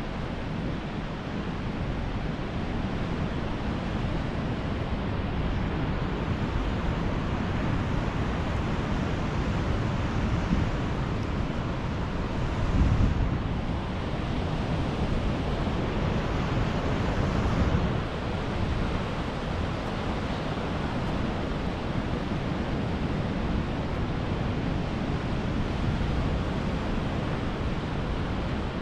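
Sea surf breaking and washing up the beach, a steady rushing that swells louder a little under halfway through, with wind rumbling on the microphone.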